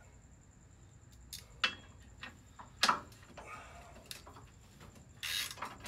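Scattered metallic clicks and clinks of a hand wrench and loose bolts being handled while unbolting a truck's front bumper bracket, the loudest a little under three seconds in, with a short rasping burst near the end.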